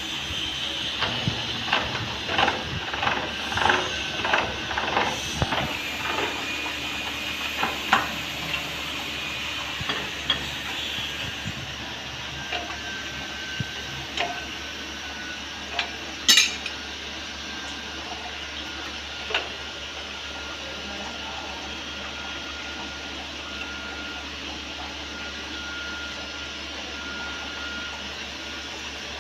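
Light metal clinks and taps, such as tools and steel parts being handled. There is a quick run of about two knocks a second over the first few seconds, then scattered clicks, with one sharp loud click about 16 seconds in.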